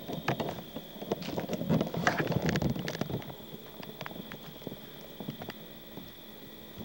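Irregular knocks and clicks, busiest and loudest between about one and three seconds in, over a steady high-pitched whine.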